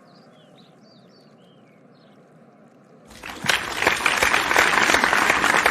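A few faint bird chirps, then about three seconds in a crowd breaks into loud, sustained applause.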